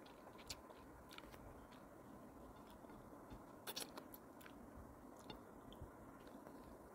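Faint close-up mouth sounds of a person eating tilapia by hand: chewing and soft lip smacks as scattered small clicks, with a short cluster of louder wet clicks a little past halfway.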